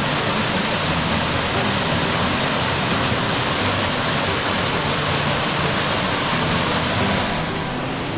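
Pencil Pine Falls, a waterfall, rushing steadily, with the sound thinning and dropping slightly near the end.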